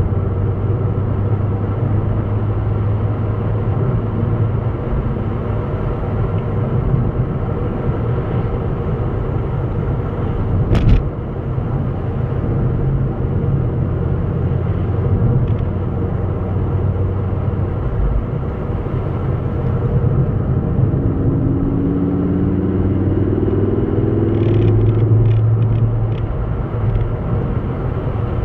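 Car engine and tyre noise heard from inside the cabin while driving, a steady rumble. A single sharp click about a third of the way in, and a rising tone with a few light ticks about three-quarters of the way through.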